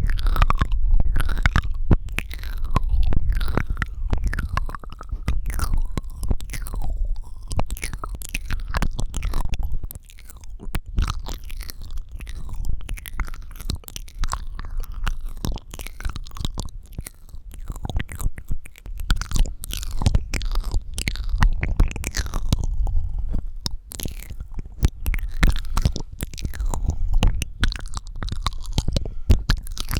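Close-miked ASMR mouth sounds: a constant run of wet clicks, pops and smacking from the lips and tongue, with breathy low rumble underneath.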